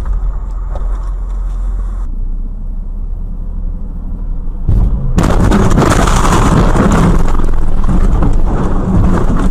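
Car dashcam sound: steady road and engine noise, then about five seconds in a sudden, much louder rough noise that lasts several seconds.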